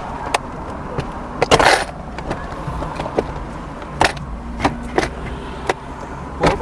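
Stock shifter assembly of a Subaru WRX being worked loose and pulled out: scattered clicks and knocks of metal parts, with a longer scraping rattle about a second and a half in.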